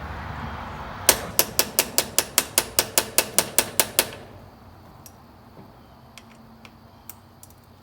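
Quick, evenly spaced metal-on-metal taps, about five a second for some three seconds, then a few faint ticks. The taps come from hammering at seized battery terminal or hold-down fittings to break them loose.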